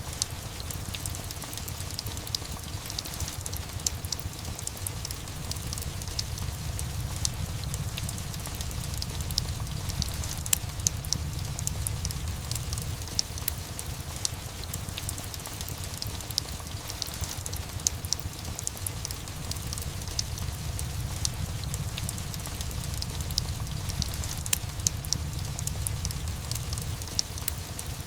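Steady rain mixed with a crackling fireplace: a constant wash of rain over a low rumble, with scattered sharp crackles and pops throughout.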